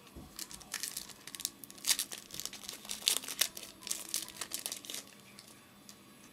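Card pack wrapper being torn open and crinkled by hand, a dense crackling for about five seconds that stops near the end.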